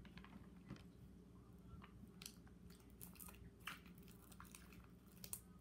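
Faint wet clicks and squelches of sticky homemade slime being stretched and squeezed by hand, a scatter of small crackles throughout.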